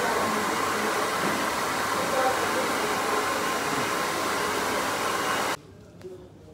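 Hand-held hair dryer blowing steadily, switched off abruptly about five and a half seconds in.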